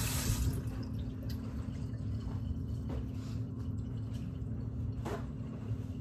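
Water running from a kitchen tap shuts off about half a second in. A steady low hum follows, with a few faint knocks and drips.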